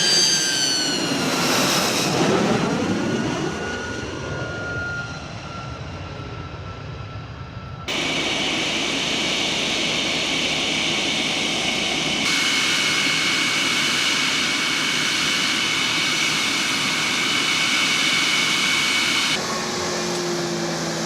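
NASA ER-2's single turbofan jet engine. An aircraft passes with a falling whine that fades over several seconds. About eight seconds in, the sound switches suddenly to a steady, close, high-pitched engine whine, and near the end it cuts to a lower, steady engine tone.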